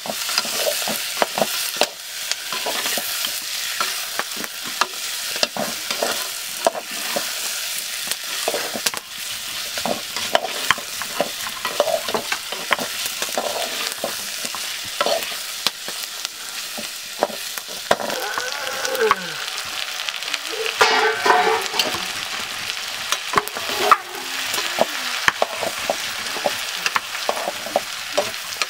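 Meat frying and sizzling in a pot over a wood fire while a metal spatula stirs it, scraping and clicking against the sides of the pot. A brief pitched call sounds about two-thirds of the way through.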